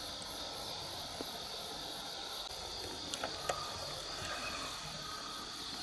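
Insects chirping steadily in the surrounding vegetation, a high, evenly pulsing trill over a constant hiss, with a couple of faint clicks about three seconds in.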